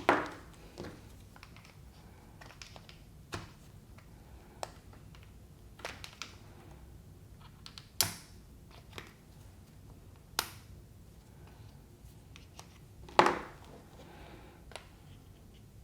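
A small screwdriver clicking and tapping against the plastic handle of an Oral-B electric toothbrush as the bottom cap is pried off. The sharp clicks are scattered and uneven, with the loudest ones right at the start, about eight seconds in and about thirteen seconds in.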